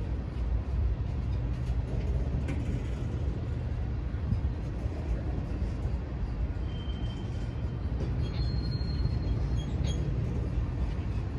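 GREX ballast hopper cars of a freight train rolling past, a steady low rumble of steel wheels on the rails. There are a couple of brief high squeals about seven and eight seconds in.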